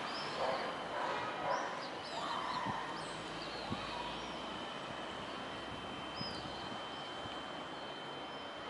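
Outdoor city background noise, steady and even, with small birds chirping: a run of short high chirps in the first few seconds and another around six seconds in.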